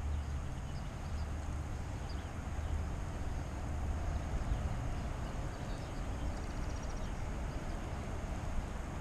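Wind buffeting the microphone outdoors: a steady low rumble, with a few faint high chirps over it.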